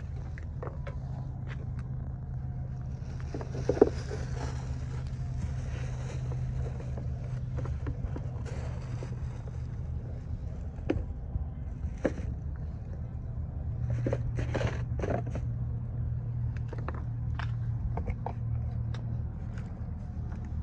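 Rustling of plastic wrapping and a cardboard shoe box being handled, with scattered clicks and taps, louder bursts of rustling about four seconds in and again around fourteen seconds. A steady low hum runs underneath.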